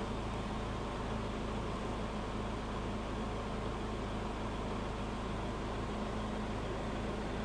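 Steady low hum with an even hiss inside a Ford Ranger's cabin, the truck running at a standstill.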